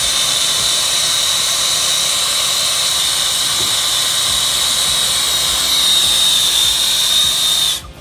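Air-acetylene hand torch burning against a copper tube as a brazing joint is heated: a steady hiss with a high whistling tone through it, cutting off suddenly near the end when the flame is shut off.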